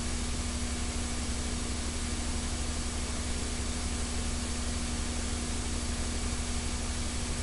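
Steady hiss with a low electrical hum and faint steady tones, unchanging throughout: the background noise of an old recording with no programme sound on it.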